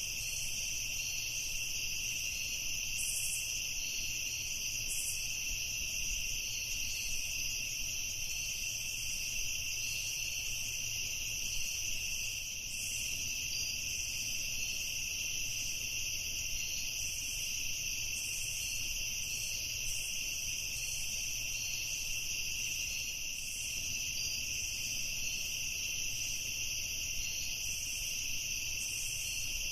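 Evening chorus of crickets and other insects: a steady high-pitched trill, with a faster flickering buzz above it.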